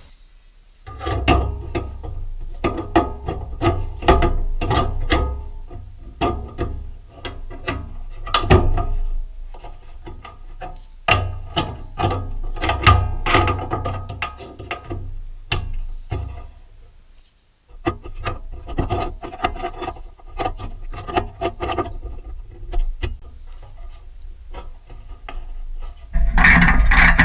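Background music with plucked guitar and a steady beat. It cuts out for a moment about two-thirds of the way through, then comes back and grows louder near the end.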